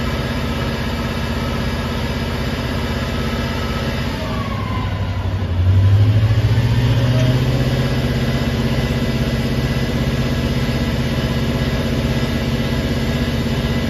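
Cummins QSK50 V16 diesel engine driving an SPM triplex frac pump under load. About four seconds in the pitch drops as the Allison transmission shifts from second to third gear. The engine then comes back louder, climbing in pitch toward about 1950 rpm as the pump builds discharge pressure, and holds there.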